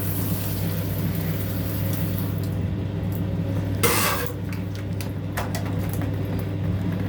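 Shower spray hissing and then shut off about two and a half seconds in, over a steady low hum. A single loud clatter or splash comes about four seconds in, followed by a few light clinks.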